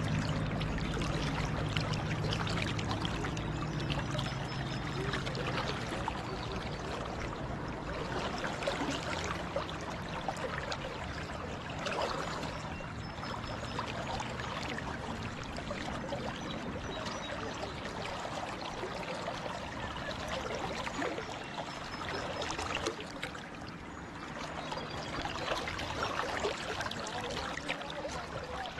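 Tuckasegee River current rushing and gurgling steadily, heard close to the water's surface. A low hum fades out over the first few seconds.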